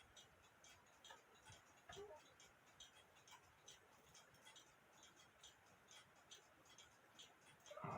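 Faint, steady ticking of a running clock, with a couple of light clicks from small metal clock parts being handled. A louder handling noise starts right at the end.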